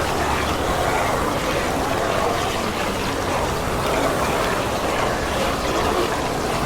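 Zombie sound effect: a crowd of snarling, groaning undead voices overlapping into one continuous, dense growl that swells and ebbs slowly.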